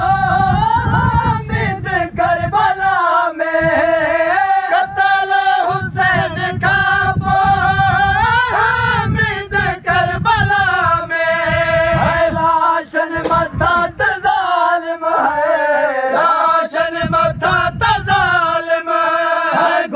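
Men's voices chanting a Sindhi noha (Muharram lament) without instruments: a lead singer with the group, in long held, wavering notes.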